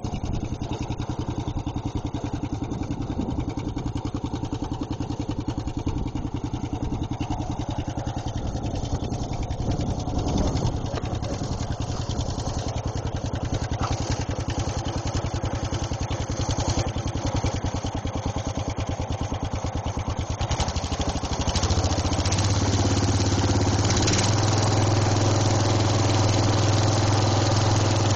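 Murray riding lawnmower's engine running through a homemade exhaust of 1¼-inch black gas pipe, idling with a steady, even firing beat. About three-quarters of the way through it is throttled up and holds at a higher, louder speed.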